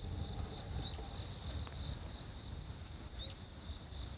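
Insects trilling steadily from riverbank vegetation, a continuous high band of sound with a few faint chirps, over a low, uneven rumble.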